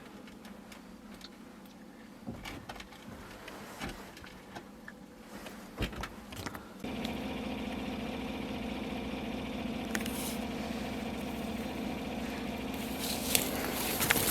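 A few small clicks and knocks, then about seven seconds in a vehicle engine starts up abruptly and runs steadily.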